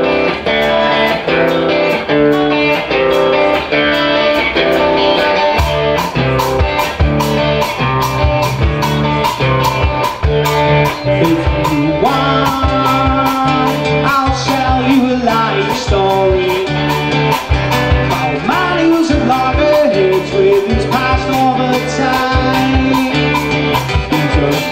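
Live rock band playing the opening of a song: electric and acoustic guitars, bass guitar and a drum kit keeping a steady beat. Notes slide in pitch from about halfway through.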